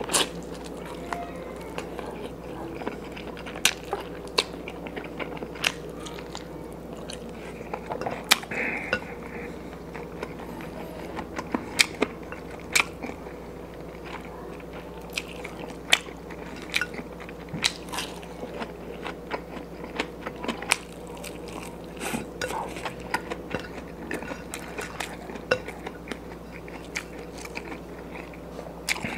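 A man chewing and biting food, eating with his hands: a run of frequent sharp clicks, smacks and crunches over a steady low hum.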